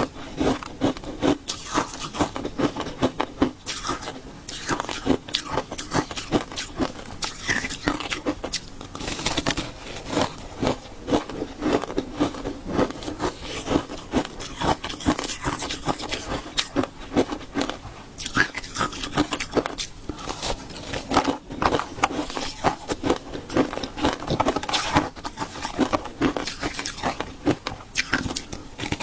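Ice being bitten and chewed close up: a steady run of crisp crunches and crackles, several a second.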